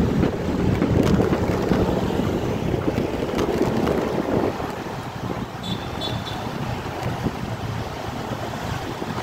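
Wind noise on the microphone over a motorcycle engine running on the move, louder for the first four and a half seconds, then easing. Two short high beeps about six seconds in.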